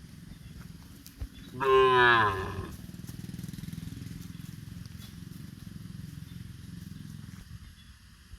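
A cow moos once, a call of about a second starting near two seconds in, over a low steady rumble that dies away near the end.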